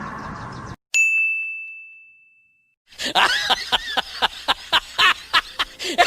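A single bright bell-like ding sound effect about a second in, ringing out and fading over a second or so. From about three seconds in, a quick string of short pitched sounds follows, roughly three a second.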